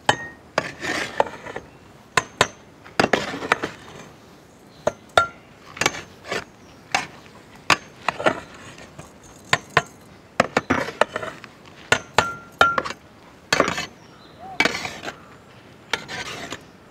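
A long-handled metal ladle scraping through cooked rice and knocking and clinking against the side and rim of a large metal cooking pot as the rice is mixed. The clinks come irregularly, about one every second, with short scrapes between them.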